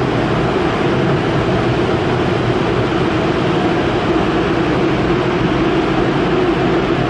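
Car wash air-dryer blowers running with a loud, steady rush of air, heard from inside the car at the tunnel exit.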